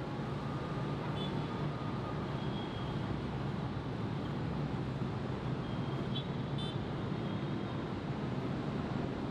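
Dense city road traffic: a steady rumble of many passing vehicle engines and tyres, with a couple of short high-pitched tones about six seconds in.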